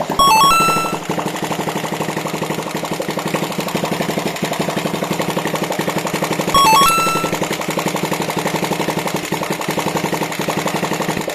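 Engine running steadily with a rapid, even firing beat. A short electronic chime of a few stepped tones sounds over it near the start and again about six and a half seconds in, louder than the engine.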